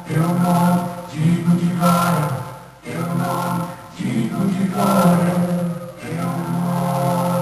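A group of voices singing or chanting together in short phrases, each lasting one to two seconds with brief breaks between them.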